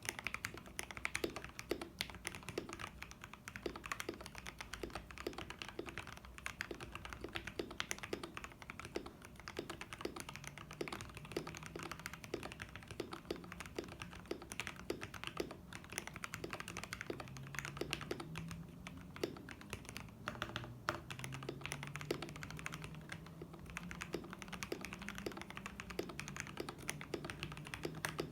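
Continuous typing on a KBD67 Lite mechanical keyboard with Gateron Milky Yellow linear switches, lubed with Krytox 205g0 and filmed, and dye-sub keycaps: a rapid, uneven stream of keystrokes. From about ten seconds in, a low background hum that wavers in pitch runs under the typing.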